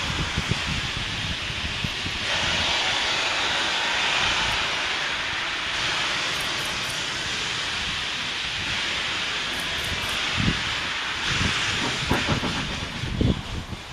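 Steam locomotive hauling a heavy passenger train slowly up a steep grade: a steady, loud hiss of steam, with irregular low thumps underneath that grow stronger near the end.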